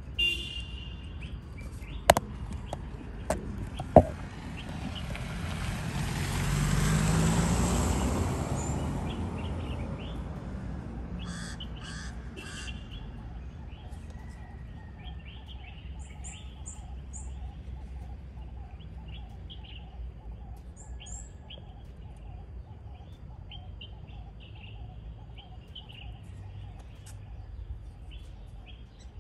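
Small birds chirping and calling throughout, with short high twitters now and then. A few sharp knocks come in the first four seconds, and a broad swell of noise, like a passing vehicle, rises and fades about five to ten seconds in.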